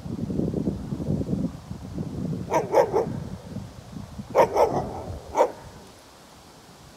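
Dog barking in short quick barks: a run of three, another run of three about two seconds later, then a single bark.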